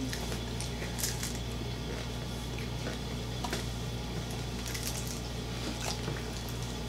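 Eating sounds of people chewing fried chicken and picking food apart with their fingers: scattered small wet clicks and smacks over a steady low hum.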